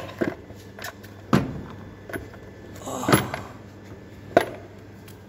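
Hard plastic air cleaner box knocking and clattering as it is wiggled and pulled loose from its mounts: a few sharp knocks about a second apart, the loudest about three seconds in.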